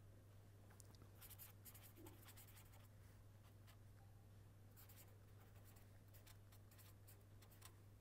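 Faint scratching of a pen writing on paper in short strokes, in two bursts with a pause between them, over a steady low hum.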